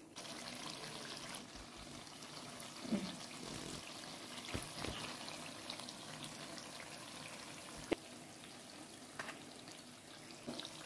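Unniyappam frying in hot oil in an unniyappam pan: a steady sizzle, with a few sharp clicks.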